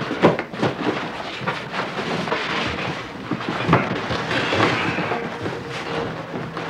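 Cardboard boxes being lifted, shifted and stacked: a run of knocks and bumps with scraping and rustling of cardboard, over a steady hum.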